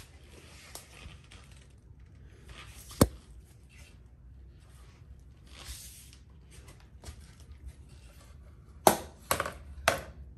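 A few faint clicks and short hisses, then several sharp clicks and knocks near the end as the cordless inflator's hose chuck is handled and taken off the motorcycle tire's valve stem.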